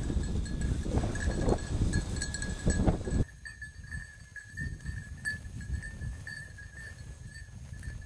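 Wind rumbling on the microphone and brush rustling under walking feet, with a thin high ringing tone that keeps on throughout. About three seconds in the sound drops abruptly to a quieter field with soft low thumps of footsteps and lighter wind.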